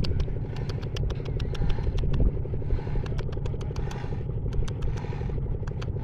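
Engine idling with a steady low rumble, with many sharp ticks scattered over it.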